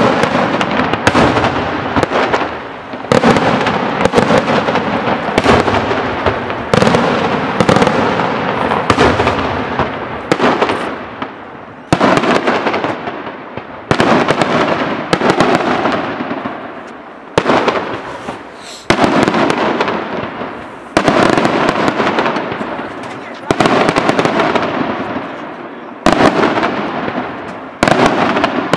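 Daytime fireworks display: aerial shells bursting overhead in a continuous series of loud bangs, a sharp report every second or two with dense crackling and echoing tails in between.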